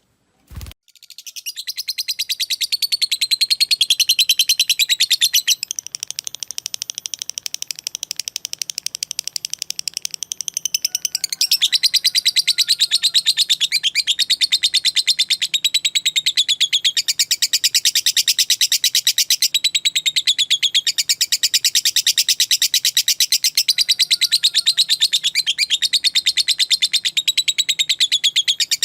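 Lovebird giving a long, unbroken ngekek: a rapid, high-pitched chattering trill made of fast ticking notes. It starts about a second in after a short knock, dips a little in loudness for a few seconds, then carries on at full strength.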